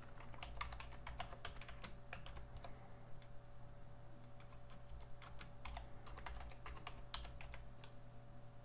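Typing on a computer keyboard: faint, irregular key clicks over a steady low hum.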